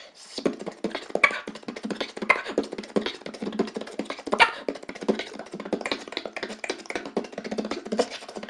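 Beatboxing sent over Ventrilo voice chat: a fast, busy run of mouth-made kicks, snares and clicks. It sounds thin, with no deep bass.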